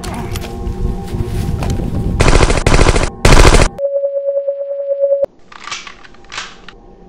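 Rapid automatic rifle fire, a fast run of shots with two very loud blasts in the middle, cutting off suddenly to a single steady electronic beep for about a second and a half. Two short bursts of noise follow over a faint music drone.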